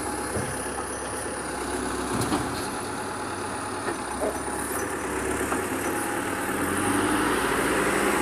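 Bulldozer's diesel engine running steadily, with a few faint knocks.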